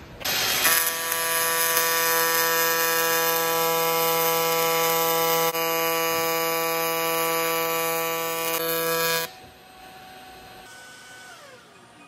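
AC TIG welding arc on aluminum from a Miller Dynasty 280 set to a 165 Hz AC frequency at 280 A: a loud, steady buzz at one fixed pitch that starts within the first second and cuts off suddenly about nine seconds in as the arc is broken.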